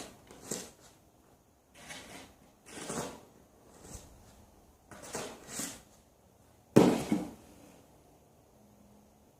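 Snow shovel scraping and scooping snow by hand, in a series of separate strokes about one every second or two; the loudest is a sharp scrape near the end.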